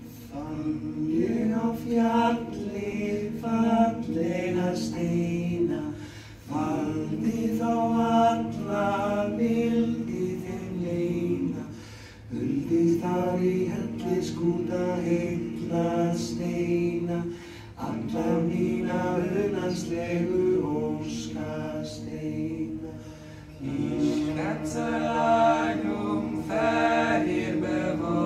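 Six singers performing a cappella in close harmony, holding long sustained chords in phrases of about five to six seconds, with short breaks for breath between phrases.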